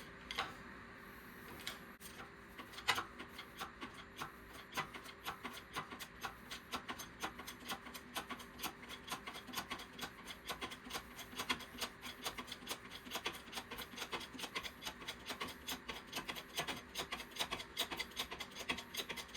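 Hydraulic bottle jack on a shop press being pumped by hand, pressing a wheel bearing out of its hub knuckle: a steady run of short clicks, a few each second. The jack is leaking but still works.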